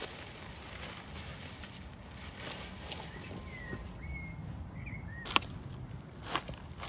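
Cut reed stalks and their dry leaves rustling and scraping as they are handled and gathered into a bundle, with one sharp snap about halfway through. A few faint, short bird chirps come in the middle.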